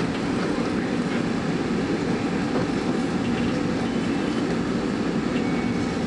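SEPTA M-4 Market-Frankford rapid-transit car running between stations, heard from inside: a steady rumble of wheels on rail. A sharp click comes right at the start.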